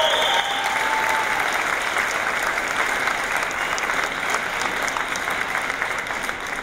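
Audience applauding, a steady dense clatter of many hands clapping that eases slightly near the end.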